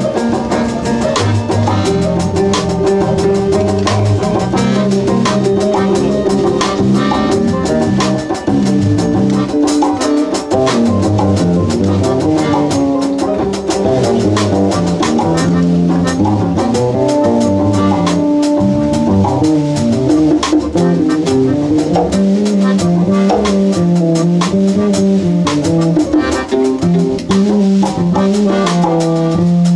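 Small live band playing: saxophone, strummed ukulele and drum kit keeping a steady beat.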